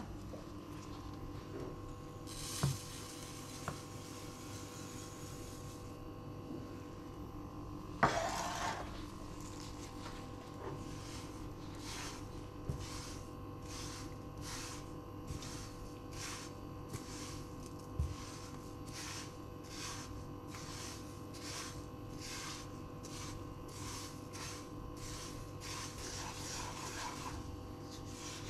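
Sesame seeds tipped into a nonstick frying pan with a brief rushing patter about eight seconds in, then a silicone spatula stirring and scraping the seeds around the pan in regular strokes as they toast. There are a few light knocks and a steady hum underneath.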